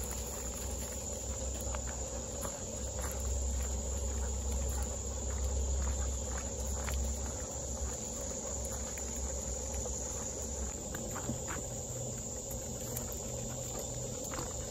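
Insects singing in a steady high drone from the surrounding woods, with footsteps and dogs' paws on a wood-chip trail giving light scattered clicks. A low rumble on the microphone drops away about ten seconds in.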